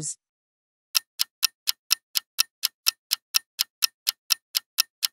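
Countdown-timer sound effect of a clock ticking, about four ticks a second, starting about a second in.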